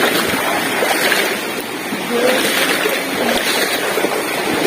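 Steady rush of water from a mountain stream and its waterfalls, with faint voices briefly heard over it.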